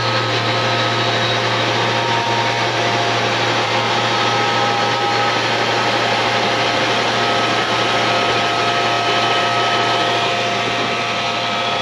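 Refrigeration vacuum pump running steadily with a low hum, evacuating the refrigerant circuit of a 20-ton rooftop unit after a brazed leak repair.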